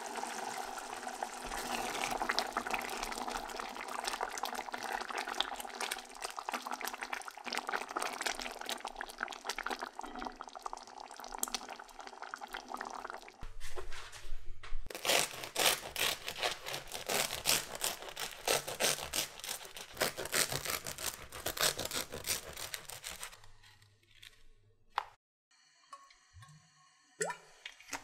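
Onion soup bubbling in a pot for about the first half. After that, the crisp crust of a baguette crackles in quick rasping strokes as it is sliced on a wooden board. It stops about five seconds before the end.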